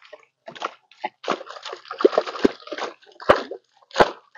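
Water splashing and sloshing as a collapsible net shrimp trap is hauled out of a pond over the side of a small boat, with a few sharp knocks about two, three and four seconds in.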